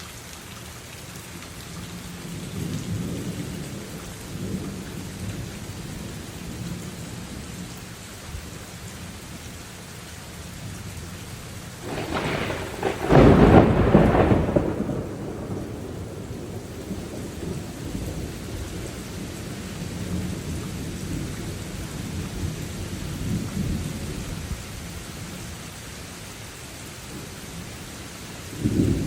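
Steady rain falling through a thunderstorm, with low rolls of thunder. About halfway through a loud, close thunderclap breaks and rumbles away for a couple of seconds, and another clap starts right at the end.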